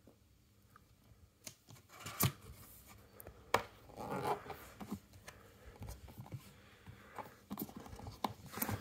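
Cardboard packaging of the Apple Pro Stand being opened by hand: card flaps and inserts rubbing, with a few sharp taps and knocks and a brief rustle about halfway through.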